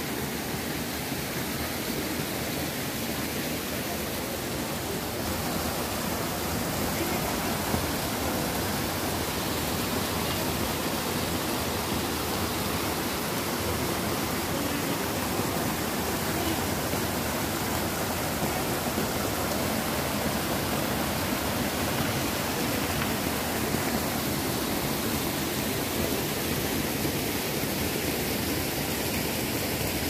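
Small mountain waterfall and stream rushing steadily: a constant, even hiss of falling and flowing water.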